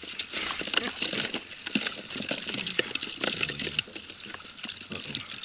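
Wet cast net being shaken out over a cooler: water pouring and dripping off the mesh, with irregular clicks and slaps as mullet drop into the cooler.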